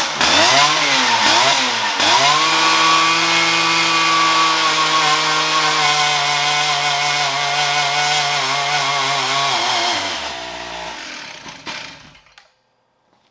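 G888 large two-stroke chainsaw, a Stihl MS880 clone fitted with an aftermarket tuned pipe, making a dyno pull. It is blipped up and down a few times, then held at full throttle for about eight seconds with its pitch slowly sagging as the dyno brake loads it. Near the end it drops off and dies.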